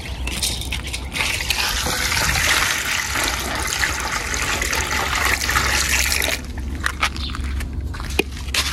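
Water rushing and splashing for about five seconds, stopping suddenly, followed by a few scattered clicks and knocks.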